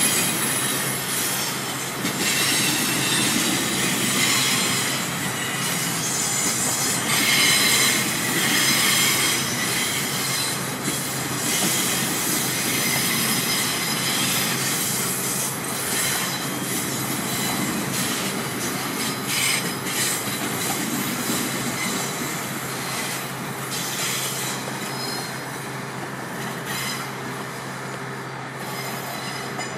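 Freight train of boxcars and gondolas rolling slowly by, its steel wheels squealing on the rails with scattered clacks over the joints. The train grows slowly quieter as it pulls away.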